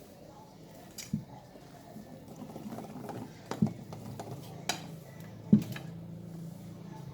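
A utensil clinking against a mixing bowl while thick cake batter is stirred: four separate knocks, the loudest about five and a half seconds in.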